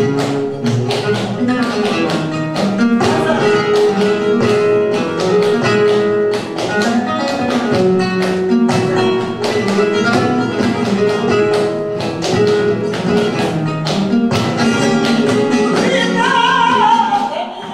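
Flamenco guitar playing bulería por soleá, with rhythmic palmas handclaps from two palmeros over it. A woman's flamenco singing enters near the end.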